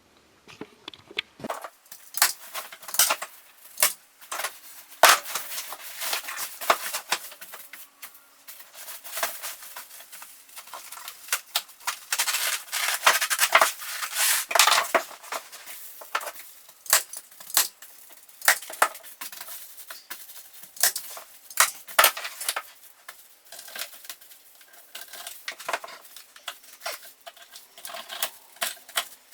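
Irregular sharp clicks and crackling, crinkling rustles of material being handled by hand, densest about twelve to fifteen seconds in.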